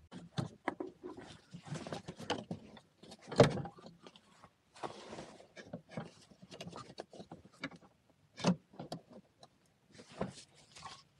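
Hand work on a car's ABS/ESP hydraulic unit and its brake lines during refitting: irregular clicks, knocks and rustling of metal parts and hoses, with a sharper knock about three and a half seconds in and another about eight and a half seconds in.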